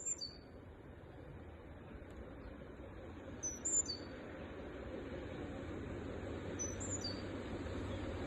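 A bird repeating a short, high call that falls in pitch, three times a few seconds apart, over a low rumble that grows steadily louder as a train approaches.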